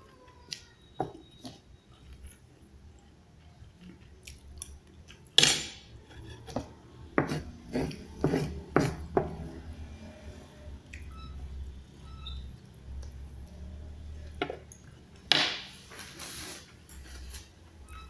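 A metal spoon and fork clinking and scraping as food is scooped from a paper wrapper: a series of sharp clicks, the loudest about five seconds in and a quick run of them a couple of seconds later, with a longer rustling scrape about fifteen seconds in.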